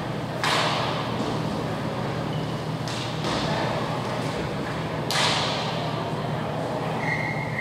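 Inline hockey play: sharp cracks of the puck being shot and struck, about half a second in and again about five seconds in, each ringing out in the rink hall, with a fainter knock around three seconds.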